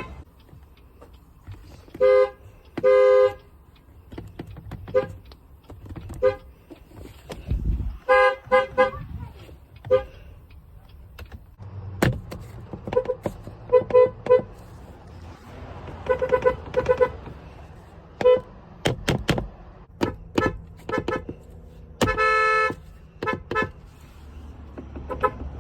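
Car horn sounded over and over: many short toots and a few longer blasts at uneven intervals, with several sharp knocks in between.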